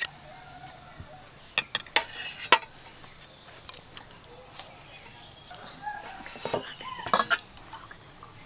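Steel ladle and serving spoon clinking against steel bowls and pans while food is dished out. There is a cluster of sharp clinks about two seconds in and another about seven seconds in.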